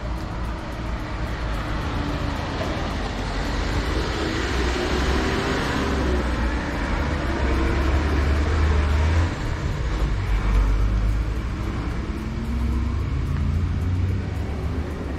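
Road traffic: a motor vehicle goes past, its noise building for several seconds and then fading, over a steady low rumble.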